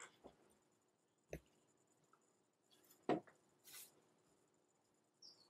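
Near silence with a few faint knocks and rustles of someone moving about and handling a small framed picture taken off a wall; the loudest knock comes about three seconds in.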